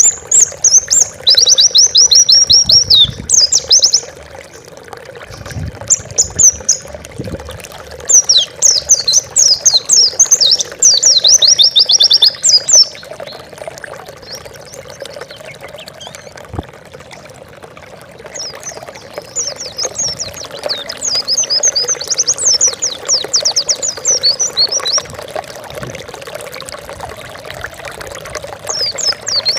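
A white-eye (pleci) sings fast, high twittering phrases in bursts of several seconds, with short pauses between them. A steady sound of pouring water runs underneath.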